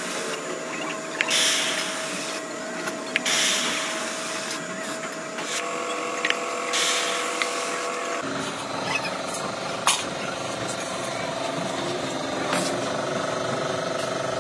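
Compressed-air paint spray gun hissing in three bursts as paint is sprayed onto a steel oil-filter canister. About eight seconds in, it gives way to a steady low machine hum with scattered clicks.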